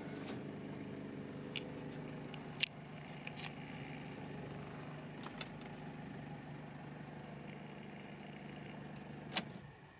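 Toyota 1KZ-TE four-cylinder turbo-diesel idling steadily, heard from inside the cabin, with a few light clicks. Near the end a sharp click comes and the engine stops.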